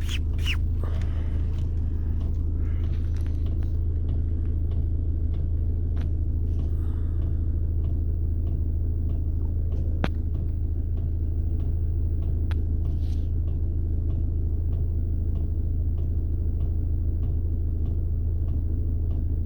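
A steady low rumbling hum with a few faint, scattered clicks.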